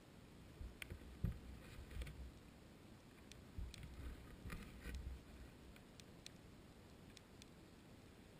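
Faint underwater ambience heard through a GoPro's waterproof housing on the seabed: a steady low hiss with scattered sharp little clicks and a few dull low knocks, the loudest about a second in.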